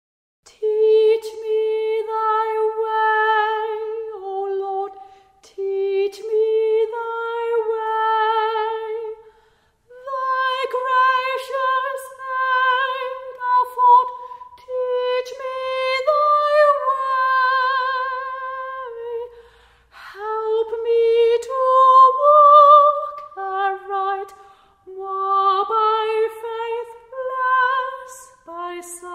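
A woman's trained classical voice singing a slow hymn melody unaccompanied, with wide vibrato, in phrases of a few seconds separated by short breaths.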